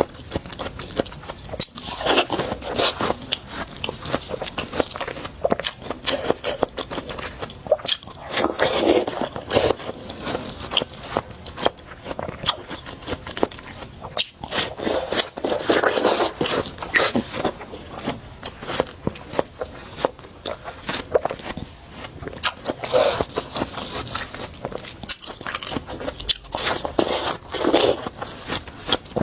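Close-miked biting and chewing of juicy watermelon: wet crunching and crackling as bites are taken, in clusters every few seconds.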